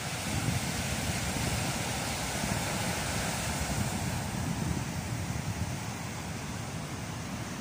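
Ocean surf breaking and washing up on a sandy beach, a steady hiss, with wind buffeting the microphone in a low rumble.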